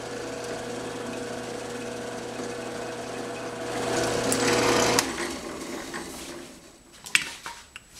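Drill press running, drilling a small hole into an aluminum block: a steady motor hum that grows louder around four seconds in, then stops abruptly about five seconds in. A few sharp clicks follow near the end.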